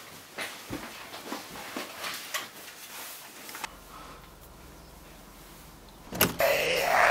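A run of small knocks and clicks, then a steady low hum. About six seconds in a door bangs sharply, followed by a loud growl.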